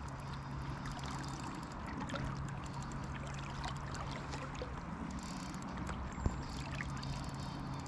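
Steady rush and trickle of shallow river current flowing past, with a constant low hum underneath and a single sharp click about six seconds in.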